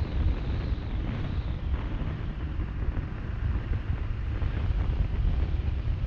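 Wind buffeting the microphone of a moving car, an uneven low rumble with some road noise from the vehicle.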